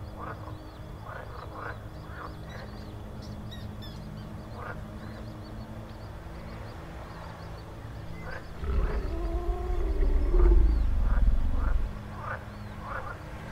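Horror swamp ambience track: a steady low drone with scattered short croaks and chirps. About nine seconds in, a loud, deep rumble with a wavering tone that falls away swells for some three seconds and dies down.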